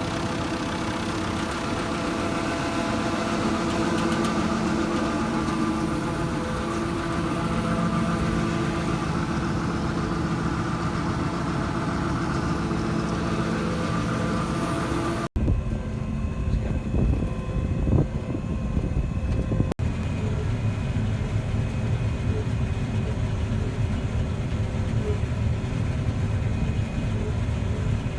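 Combine harvester running during oat harvest, a steady engine hum with machinery noise. About fifteen seconds in the sound cuts abruptly to a lower, rougher machine noise, and it cuts again a few seconds later to a steady low running sound.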